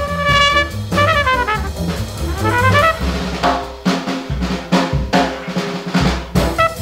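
Background music with brass and drum kit: quick horn runs in the first half, then a string of drum hits in the second half.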